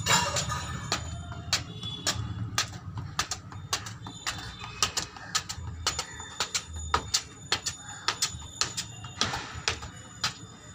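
Sharp, irregular taps and scuffs, two or three a second, from a football being kicked and bouncing and from boots stepping on a concrete floor. A steady low rumble runs underneath.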